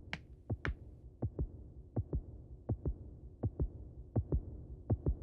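Cartoon heartbeat sound effect: a steady lub-dub, one pair of low thumps about every three-quarters of a second, marking nervousness. In the first second two sharper footsteps land on a wooden stage.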